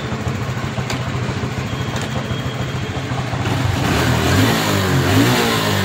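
TVS Victor motorcycle's single-cylinder four-stroke engine idling steadily. It keeps running while the handlebar is swung, the sign that the repaired broken wire in the headlamp wiring no longer cuts the ignition when the steering turns.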